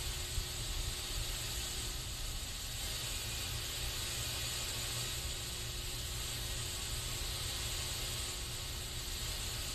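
Aerosol spray can hissing in one steady, unbroken stream, with a low rumble underneath.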